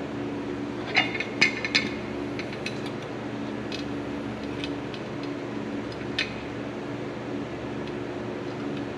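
Metal clinks of hand tools and drum-brake parts being handled while truck brake shoes are fitted, with a cluster of sharp clinks about a second in and scattered lighter ones after. Under it runs a steady machinery hum.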